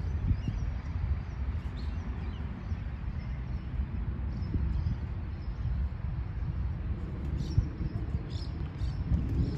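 Low, uneven rumbling noise with faint, short bird chirps scattered over it, more of them in the second half.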